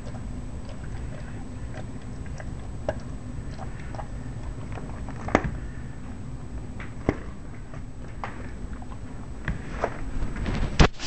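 Bernese Mountain Dog in a plastic cone chewing at a dental treat on the floor, with scattered clicks and knocks and a few sharper knocks near the end.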